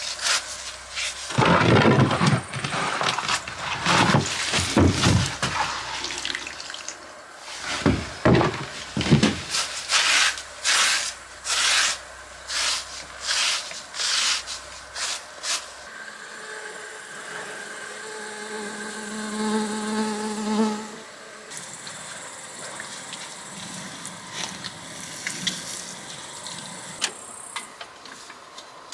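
A brush scrubbing the rough stone wall, a run of quick rasping strokes, several a second. About two thirds of the way through, a steady buzz takes over for about five seconds.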